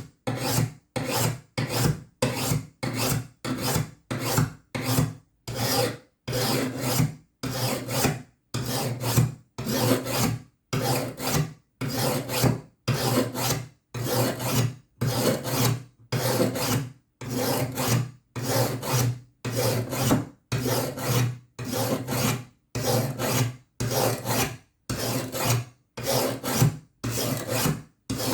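Hand sharpening stone stroked along a steel lawnmower blade's cutting edge, scraping steadily in even, separate strokes, a little over one a second.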